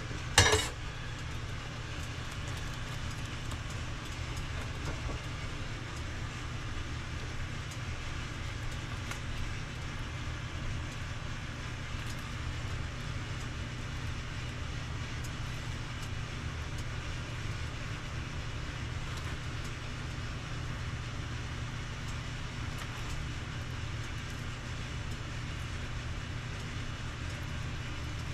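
A pot of udon noodles boiling on the stove over a steady low kitchen hum, with faint scattered bubbling ticks. One sharp clink of a utensil or pot about half a second in.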